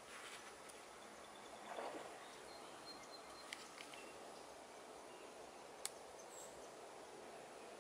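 Quiet woodland ambience: a faint steady hiss with a brief rustle about two seconds in, short thin high chirps a little later, and a few faint sharp clicks.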